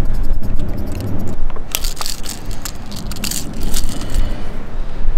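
Wind buffeting the microphone with a steady low rumble, and in the middle a run of sharp crackles and rattles from handling as a lure is worked free of a largemouth bass's mouth.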